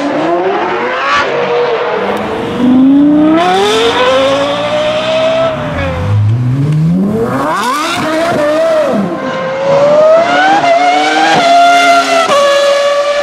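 Naturally aspirated V10 car engine revving hard, its pitch climbing repeatedly and falling back at gear changes and lift-offs over several runs.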